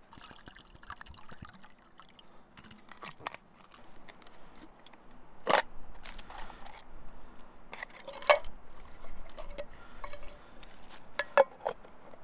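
Hands handling small metal camp cookware, a pot lid and an aluminium beer-can burner: a string of light clinks and knocks, the loudest about five and a half seconds in and again near eight and eleven seconds.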